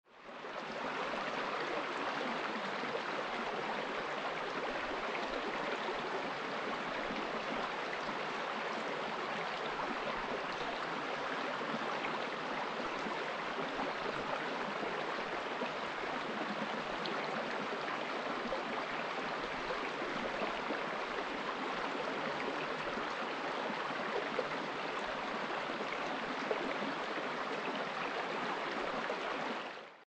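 Small mountain stream running steadily over rocks, an even rush of flowing water that fades in over the first second and out at the very end.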